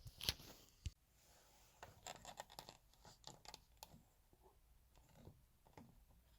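Faint scattered clicks, taps and light scraping of small objects being handled, with two sharper ticks in the first second and a quick run of small clicks a couple of seconds in.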